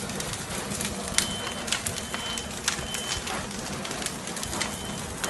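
A burning house crackling with sharp pops over a steady rush of flames. A smoke alarm beeps a run of three high beeps a little after a second in, the pattern of a fire alarm going off.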